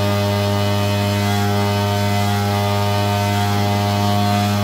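Cotton candy machine running at full speed with a steady electrical hum. Its motor spins the copper heating head with no dimmer, powered straight from a 10-amp battery charger.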